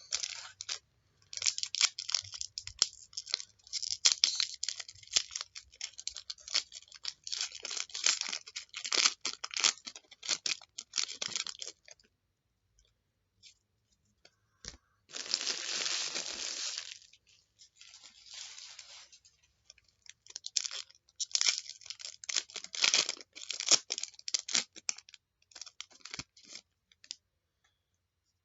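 Trading card pack wrapper being crinkled and torn open by hand. Dense crackling comes in stretches, with one smooth tearing sound of about two seconds around the middle.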